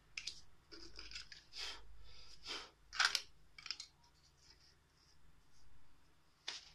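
A thin metal nameplate being slid and scraped across the metal table of a sheet embosser: a series of short scrapes and clicks, the loudest about three seconds in and another near the end.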